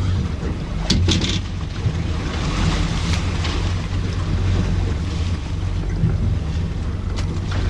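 Wind buffeting the microphone on a small boat at sea, with water washing against the hull over a steady low hum. A few short knocks come about a second in and again near the end.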